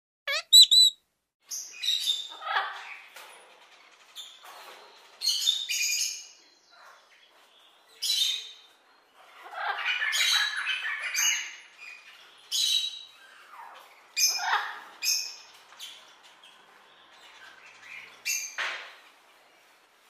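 Parrots calling: a few short whistled notes right at the start, then harsh squawks and screeches that come every second or two with short quiet gaps.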